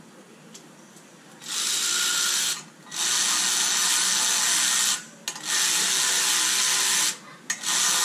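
Cordless drill-driver running in four spells of one to two seconds with short gaps, the first about a second and a half in and the last starting near the end. It is driving the cam-cap screws that pull a home-made plate down to compress a valve spring on a BMW M52 cylinder head.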